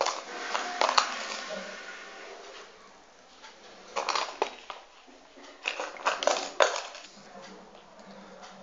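Dishes and a spoon clinking and knocking in short clattering bursts, about a second in, around four seconds and again around six seconds, with quieter handling noise between.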